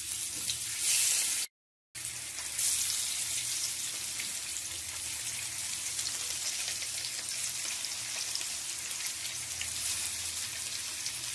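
Pieces of stinging catfish (shing) frying in hot oil in a frying pan: a steady crackling sizzle, louder in the first second or so as pieces go into the oil. The sound cuts out for a moment near two seconds in.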